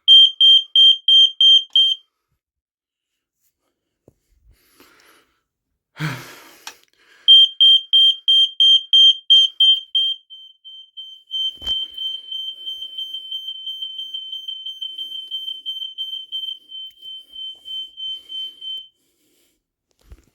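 Home smoke alarms under a system test, sounding rapid high-pitched beeps at about three to four a second. A two-second burst stops, and after a pause the alarms beep again for about three seconds. They then carry on with fainter, faster pulses until they cut off about nineteen seconds in.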